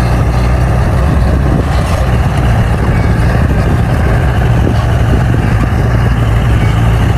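Bulldozer's diesel engine running at a steady speed, with an even low hum.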